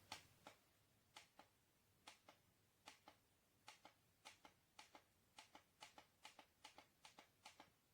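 Near silence with faint sharp clicks, mostly in pairs, repeating about once a second and coming closer together toward the end.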